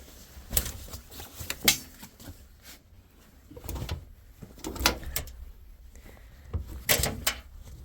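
Wet laundry being handled and loaded into a tumble dryer's drum: irregular rustling with scattered knocks and clicks, the sharpest about two, five and seven seconds in.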